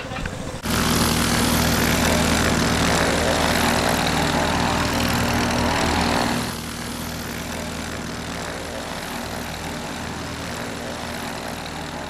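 Light aircraft piston engine and propeller running close by, starting abruptly about a second in, then giving way at about six and a half seconds to a quieter, steady engine sound.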